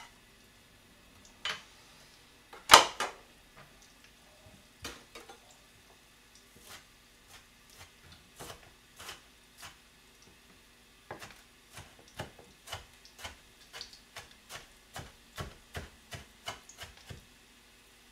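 Chef's knife chopping green onion on a plastic cutting board: the blade taps the board in a fairly even run of two to three chops a second through the second half. Earlier there are scattered knocks, the loudest a single sharp one about three seconds in.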